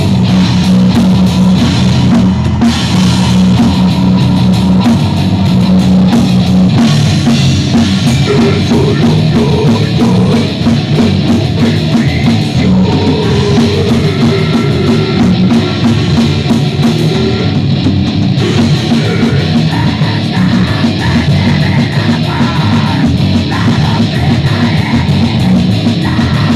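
Goregrind band playing: heavily distorted guitars and bass over fast, pounding drums, loud and unbroken.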